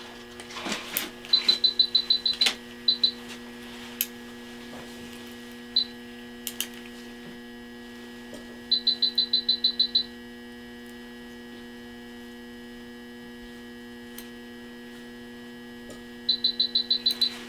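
Steady electrical hum from operating-room equipment. Over it, loud runs of rapid high-pitched electronic beeping come about a second in, around nine seconds in and near the end, each about eight beeps a second for a second or so, with a few single beeps between: an alarm from an electronic monitor. A few sharp clicks are also heard.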